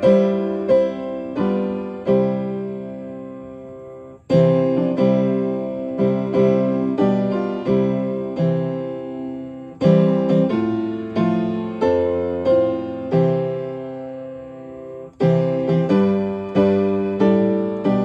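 Upright piano playing a hymn accompaniment in block chords, steady four-beat phrases. Each phrase ends on a held chord that dies away, and the next starts with a firmly struck chord about four, ten and fifteen seconds in.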